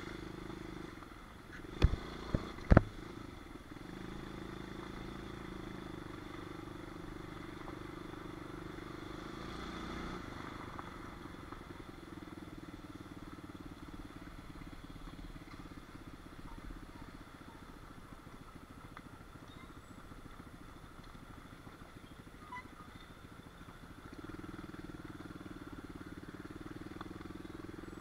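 Small pit bike engine running steadily, with three sharp knocks about two seconds in. The engine note changes around ten seconds in and grows a little louder near the end.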